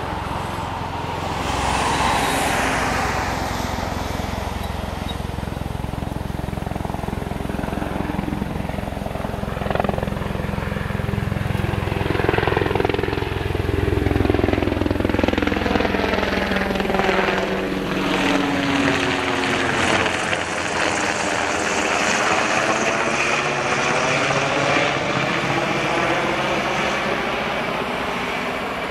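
Sikorsky UH-60 Black Hawk helicopter flying past, its main rotor and twin GE T700 turboshaft engines running. The sound builds to its loudest about halfway through, then turns into a sweeping, wavering whoosh as the helicopter passes over and away.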